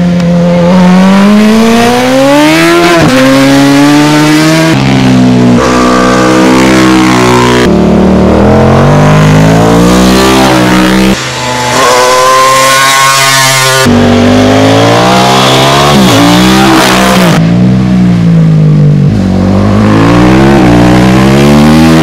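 Racing motorcycles at full throttle, heard from the roadside one after another in quick succession. Each engine note climbs in pitch through a gear and drops at the upshift, starting with a BMW 1000 superbike.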